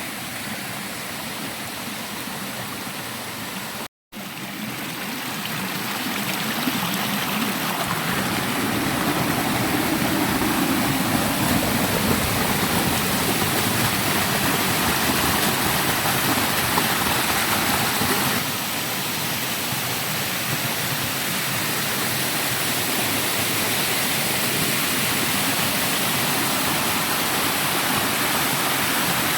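Small forest waterfall: water pouring and splashing in a steady rush. The sound cuts out for an instant about four seconds in, and it is a little quieter from just past halfway.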